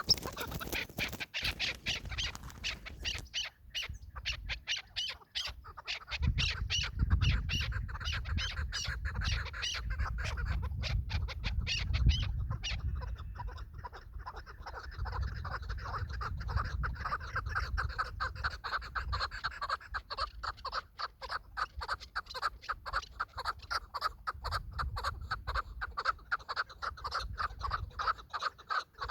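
Chukar partridges calling: a long run of fast, repeated clucking notes, with a low rumble underneath through the middle stretch.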